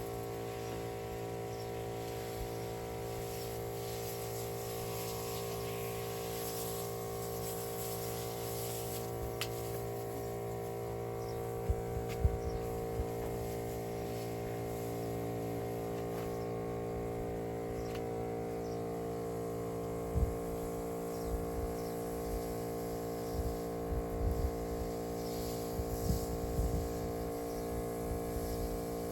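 A backpack pesticide sprayer's motor-driven pump running with a steady electric hum while spraying, with occasional low knocks of handling.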